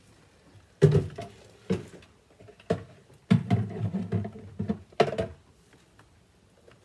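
Pigeon seed mix being scooped and handled: several sharp knocks with a rattling, pattering stretch in the middle.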